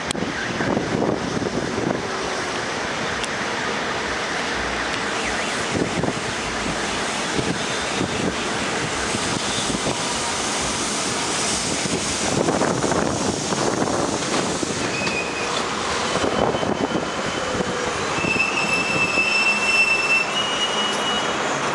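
R42 subway train running into an elevated station: a steady rumble and rattle of steel wheels on the track. Near the end it lets out a thin, high squeal as it slows to a stop.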